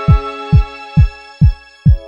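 Intro music: a deep kick drum hitting about twice a second, five beats here, under held chords that change near the end.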